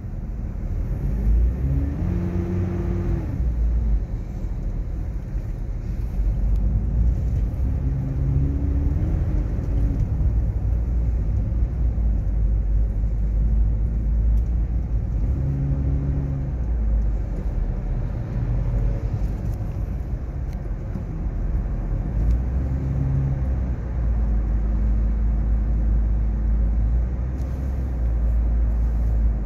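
Road and engine noise heard inside a moving car: a steady low rumble, with the engine note rising and falling briefly a few times.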